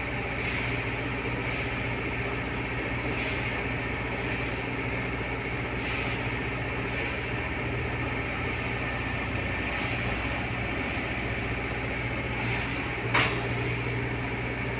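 Steady hum of steel-factory machinery: a low drone with several held tones, broken by one short sharp knock about thirteen seconds in.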